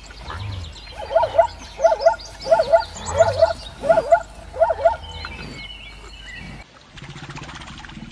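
Zebra giving its barking call: about six yelping double barks in a row, each a sharp rise and fall in pitch. Near the end the calls have stopped and a low rough rasping sound sets in.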